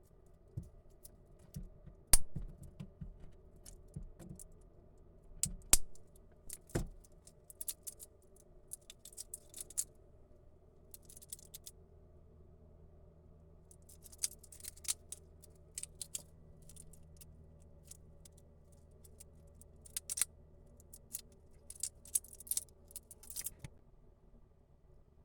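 Stainless steel watch bracelet being handled: a series of sharp clicks, then bursts of light metallic jingling as the links move.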